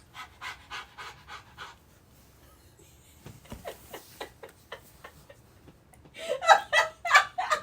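A man imitating panting with his voice: quick rhythmic breathy huffs, turning into louder voiced huffs over the last second and a half.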